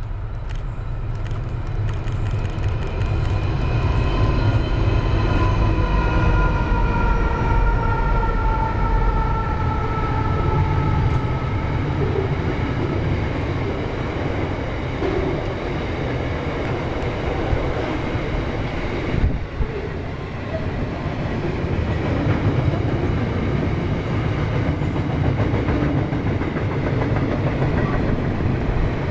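A steel freight train hauled by NR and 93 class diesel-electric locomotives passes at speed. The locomotives' engine note slides down in pitch as they go by, followed by the steady rumble and clatter of loaded wagons rolling over the rails.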